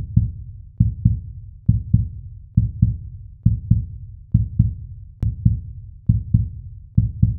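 Intro music built on a deep double bass thump, heartbeat-like, repeating a little faster than once a second. There is a short sharp click about five seconds in.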